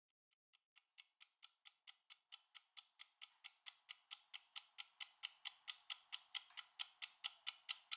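Countdown timer ticking fast and evenly, about four to five ticks a second, fading in from faint and growing steadily louder as the count nears zero.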